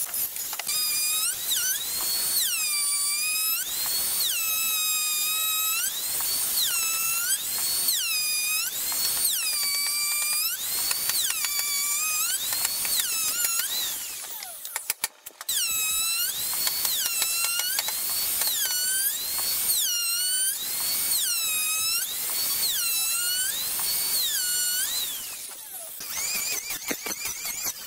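Electric hand planer running at high speed, its whine dropping in pitch each time the blades bite into the wood and climbing back as the cut ends, in repeated passes about one a second. The sound breaks off briefly about halfway through, then the passes resume.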